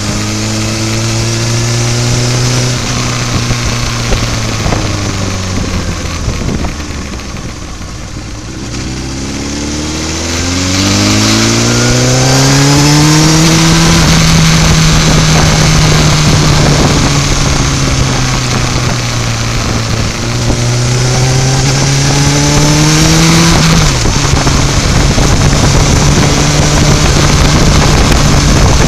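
Sport motorcycle engine heard from on board: the engine note eases off over the first several seconds, then rises steeply as the bike accelerates about a third of the way in, and holds at steady revs with a brief dip about two-thirds through. Wind rushing past gets louder as the bike speeds up.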